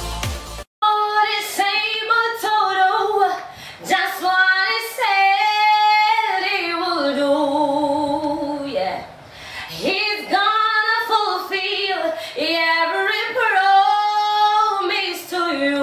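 Electronic intro music cuts off under a second in, then a woman sings a gospel song solo and unaccompanied, with long held notes and vibrato.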